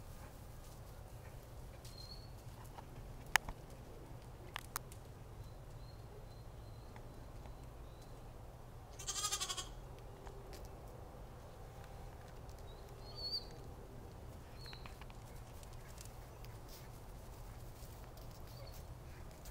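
A lamb bleats once, a loud quavering cry about nine seconds in.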